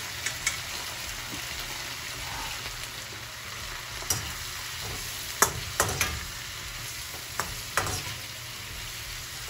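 Green pepper and onion sizzling in oil in a wok over a high flame, a steady hiss, while a slotted metal spatula stirs them, knocking and scraping against the pan several times.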